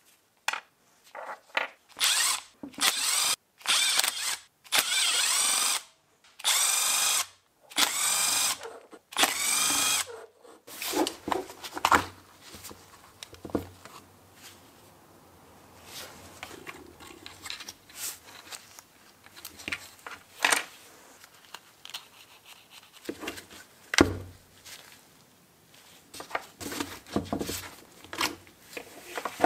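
Electric screwdriver run in a quick series of short bursts on screws, its whine wavering up and down in pitch with each burst. After about ten seconds it stops, leaving scattered light clicks and knocks of small parts and screws being handled on a bench.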